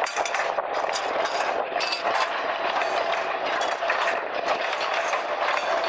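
Durango and Silverton narrow-gauge passenger coaches rolling past, their steel wheels clicking over the rails in an uneven rhythm over a steady rumble of the moving train.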